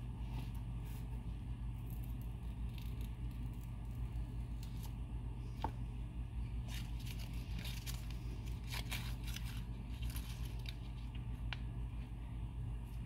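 Scattered light scrapes, crackles and clicks of a butter knife and crinkly food wrapping being handled, mostly in the second half, over a steady low hum.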